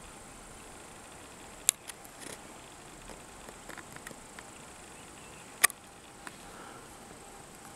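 Faint steady outdoor hiss with two sharp clicks about four seconds apart and a few softer ticks between them, typical of a handheld camera being handled while it zooms and pans.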